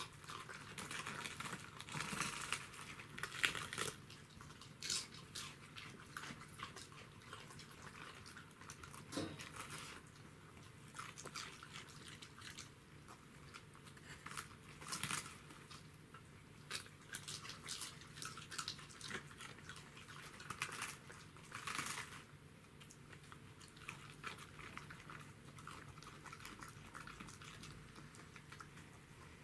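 Two Welsh corgis chewing raw cabbage leaves: irregular crisp crunches and bites, with short pauses between.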